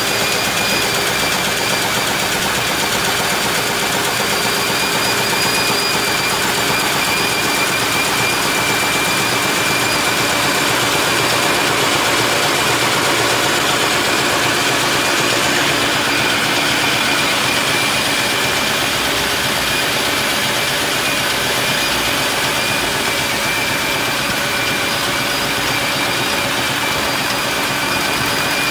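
Four-colour Halm Jet envelope offset press running at speed as envelopes feed through: a steady, dense mechanical clatter with a faint high whine held throughout.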